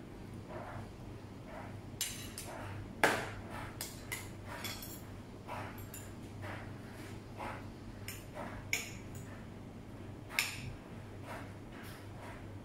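A metal fork clinking and scraping against ceramic plates and a salad bowl while eating, in a string of sharp clinks with the loudest about three seconds in and another near ten seconds.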